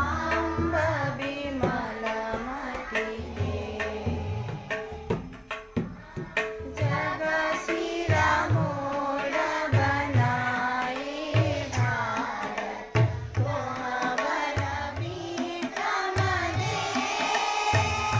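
A group singing a prayer song in unison, accompanied by a tabla. The deep bayan strokes land under the voices in a regular rhythm, and the sharper dayan strokes sound above them.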